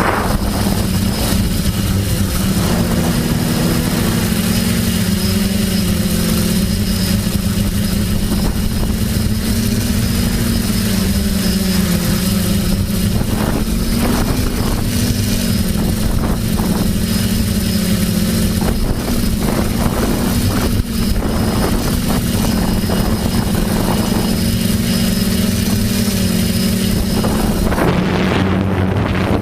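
TBS Discovery quadcopter's electric motors and propellers whirring in flight, a steady buzzing hum whose pitch shifts a little as the throttle changes.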